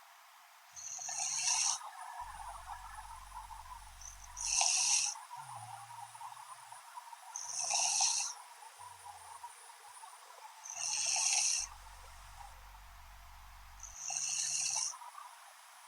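A young woman snoring in her sleep: five hissy breaths at an even pace, about one every three seconds.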